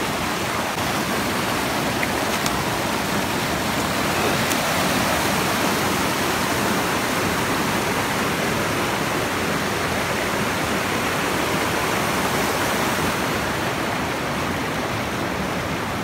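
Waterfall pouring, a steady, even rush of falling water heard up close.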